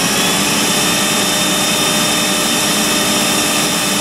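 Electrolux vacuum cleaner motor running steadily at full speed on straight 115 volts, with a high steady whine over the rush of air, just after switching on. It draws about 7 amps, which the owner takes for about right.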